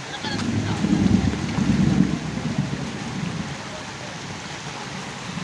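Fast-flowing floodwater rushing and splashing along a street, with a heavy low rumble that swells at the start, peaks a second or two in and fades out.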